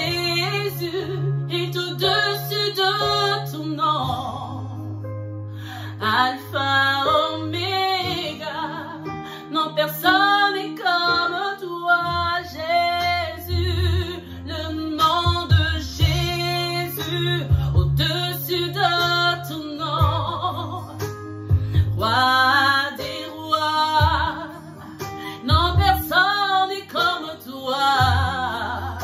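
Worship song: a woman's voice singing a melody over guitar and steady low bass notes.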